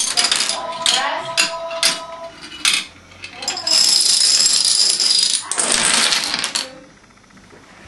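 Rows of dominoes toppling in a chain reaction, a fast continuous clatter of many small tiles striking one another and the wooden floor. The clatter drops off briefly about three seconds in, runs on again, and dies away near the end.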